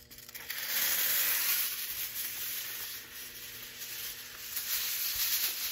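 Dollar-store aluminum foil being pulled off its roll: a steady, loud crinkling that starts about a third of a second in.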